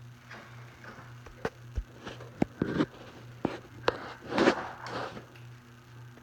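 Scattered clicks and knocks of hands and tools working on the indoor unit of a ductless mini-split air conditioner as it is mounted and screwed down, with a louder scraping rustle about four and a half seconds in. A low steady hum runs underneath.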